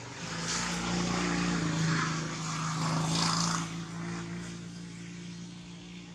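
A motor engine passing by, a steady hum that swells over the first few seconds and then fades away.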